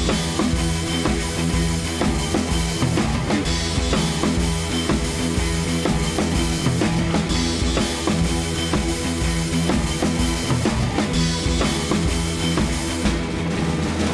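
Heavy metal music: distorted electric guitar over a fast, steady drum beat.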